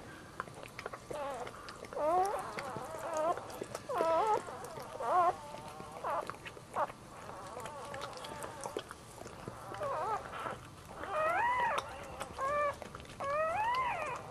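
Newborn miniature dachshund puppy squealing: short, high cries that rise and fall in pitch, a run of them in the first few seconds and louder ones near the end.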